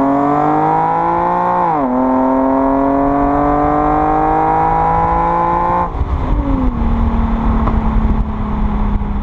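Infiniti G37's 3.7-litre V6 through an Invidia Gemini stainless cat-back exhaust, heard close to the tailpipes while accelerating: the pitch climbs, drops sharply with an upshift about two seconds in, and climbs again. About six seconds in the throttle closes and the exhaust falls to a lower steady note with a rough, uneven rumble on the overrun.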